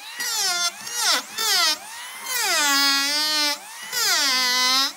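Electric hand planer shaving the edge of a wooden slab over several short passes. Its motor whine sags in pitch under each cut and rises again between strokes.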